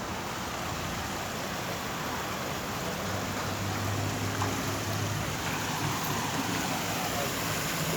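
Water running steadily down a sponge-stone garden waterfall, a continuous splashing rush, with a low hum joining about three seconds in.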